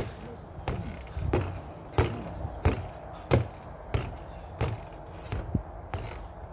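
Boxing-gloved punches striking a freestanding reflex bag, a sharp thud roughly every two-thirds of a second in a steady rhythm, with the bag's spring stem rattling as it rebounds.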